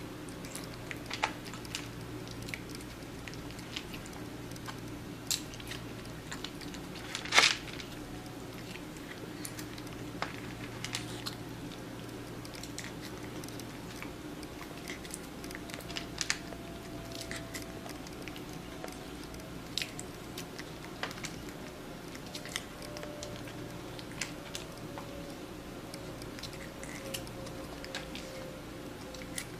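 Scattered small clicks and crunches, one louder snap about seven seconds in, over a steady low hum, with a faint tone slowly dropping in pitch through the second half.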